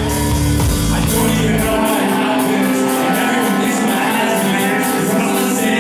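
Loud music at a live show, with a steady beat of short high ticks; the deep bass drops out about two seconds in.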